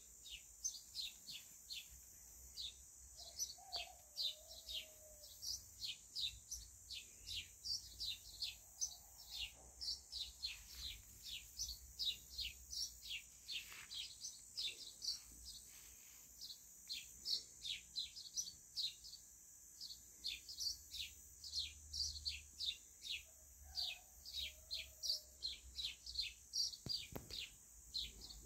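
Small bird chirping over and over, short high downward chirps at about three a second, with a steady faint high hiss behind.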